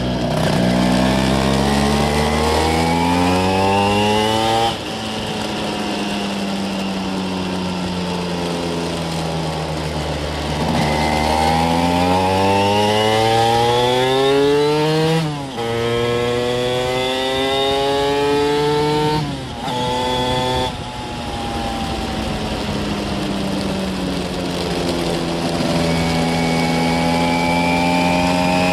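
Vespa two-stroke engine with a Quattrini M1L 60 cylinder kit, heard on board while riding. The revs climb in a rising wail several times, and the pitch drops sharply at each gear change, about five, fifteen and twenty seconds in. Between the climbs the engine slides down slowly as the throttle is eased.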